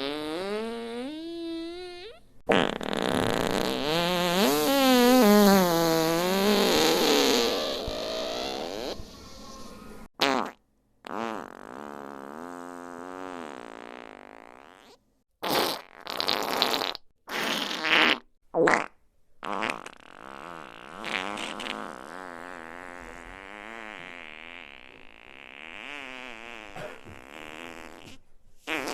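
A run of fart sound effects, one after another. They include a long, loud one a few seconds in whose pitch wobbles up and down, a quick string of short sharp ones about halfway through, and a long quieter wavering one near the end.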